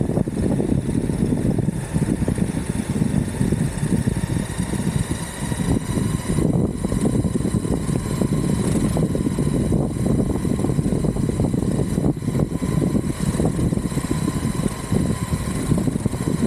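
Exway Atlas Pro 4WD electric skateboard riding on a road: a steady low rumble of the wheels, with a faint high whine from the motors over it.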